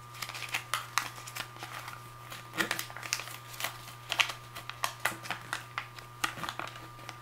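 Folded paper leaflet being unfolded by hand: irregular crinkling and crackling of the paper, with a few sharper crackles in the middle.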